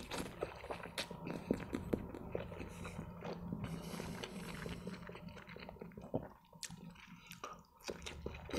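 A man chewing a mouthful of spaghetti in tomato sauce close to the microphone: soft wet mouth smacks and many small irregular clicks.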